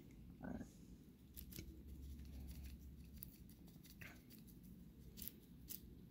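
Faint scratching and dabbing of a small paintbrush working black paint into a textured polymer clay figure, with scattered small clicks over a low steady room hum.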